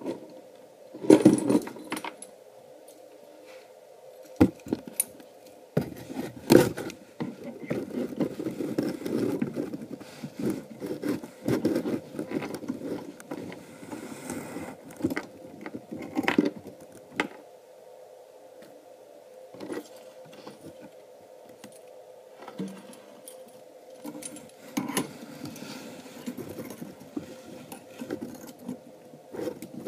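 Stainless steel pipe fittings clinking, knocking and scraping as a camlock fitting and hose are handled and attached to a wort pump's inlet. Sharp metal knocks about a second in and several more later, over a faint steady hum.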